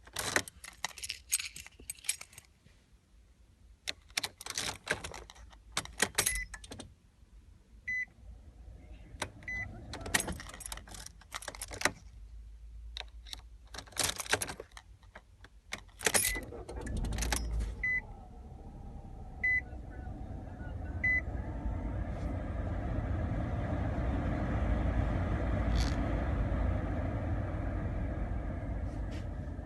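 Car keys jangling and clicking in the ignition, with several short beeps of a warning chime between them. About sixteen seconds in, the car engine cranks and starts, then runs at idle.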